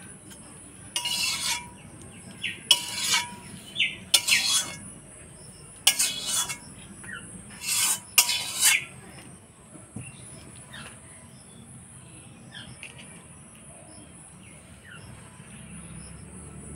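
A spoon scraping and scooping in a cooking pan, six short harsh strokes over the first nine seconds, as the finished alur dom is dished out. After that a few faint bird chirps are heard over a steady high insect hiss.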